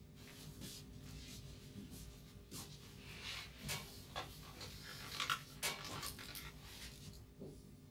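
Whiteboard eraser wiping across a whiteboard in a series of short rubbing strokes, thickest in the middle of the span.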